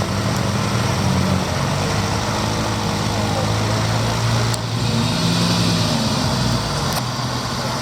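Classic Bugatti engine running steadily at low revs, with a brief rise and fall in revs about five seconds in.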